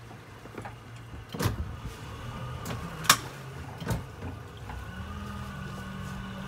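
Motorboat engine running steadily, its note stepping up about five seconds in as the throttle opens. Several sharp knocks stand out above it.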